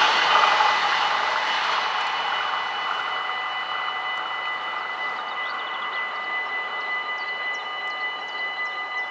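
Electronic warning bells of a Dutch level crossing ringing steadily as a high, even tone. Under them, the running noise of a departing LINT 41/H diesel railcar fades away over the first couple of seconds.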